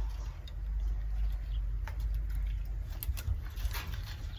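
Rustling and snapping of brush and briars being pulled and handled, scattered crackles over a low rumble on the microphone.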